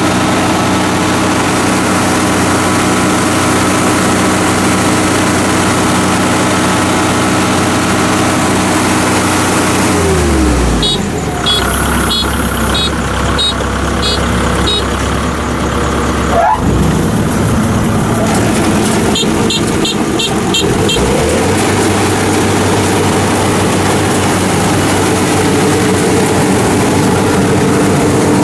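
Kubota PRO75G combine harvester's 75-horsepower engine running steadily. About ten seconds in its pitch drops, and for roughly ten seconds a rougher machine noise with a high ticking about twice a second takes over, with a brief rising sweep in the middle. Then the steady engine note returns.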